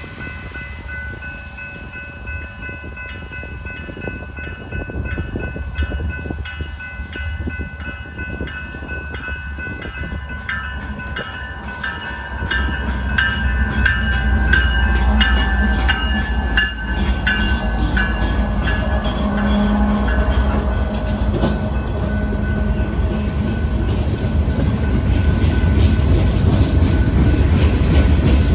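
Diesel-hauled freight train approaching and passing, growing louder as the locomotive rumble builds. Its horn sounds through the first part, then fades out around two-thirds of the way in, while wheels click steadily over the rail joints.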